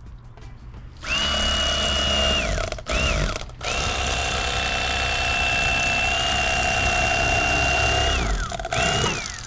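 Bubba Blade electric fillet knife running as it cuts a black sea bass fillet: a steady high whine switched on and off several times, a run of over a second, a short burst, then a long run of about four seconds and a brief burst near the end. Each time it is released the whine falls in pitch as the motor winds down.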